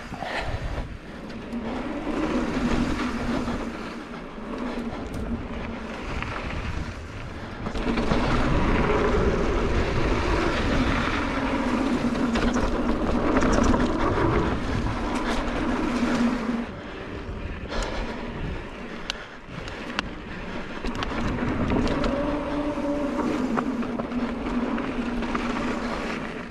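Mountain bike riding down a dirt singletrack: tyres on dirt and rock, chain and frame rattle, and wind on the helmet camera, with a buzzing tone that comes and goes and a louder rough stretch in the middle.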